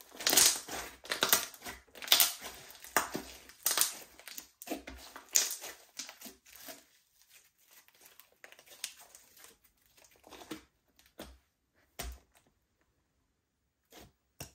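Slime being pressed and folded by hand with makeup mixed in, giving a run of crackling, crunchy pops over the first seven seconds, then a few scattered clicks.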